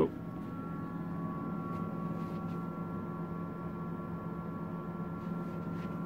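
Converted fridge-freezer fermentation chamber running: a steady low hum with a faint, steady high whine over it.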